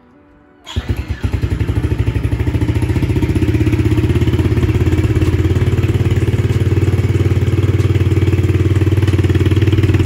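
Yamaha TT-R110's 110 cc four-stroke single-cylinder engine starting just under a second in, catching with a few uneven pulses, then idling steadily while it is warmed up before its oil is drained.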